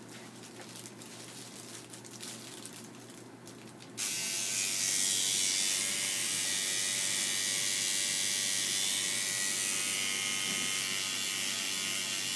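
RejuvaPen microneedling pen switched on about four seconds in, its motor buzzing steadily as the needles are worked over the skin of the face. Before it starts, only faint handling sounds.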